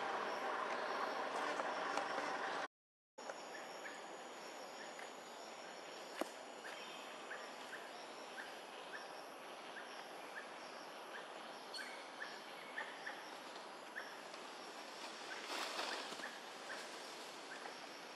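Outdoor forest background in which a short high chirp repeats about twice a second from around six seconds in. The first few seconds hold a louder, steady rush of noise that cuts off abruptly into a brief silence.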